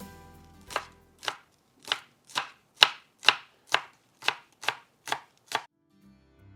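Knife chopping food on a cutting board: about eleven even strokes at roughly two a second, then stopping.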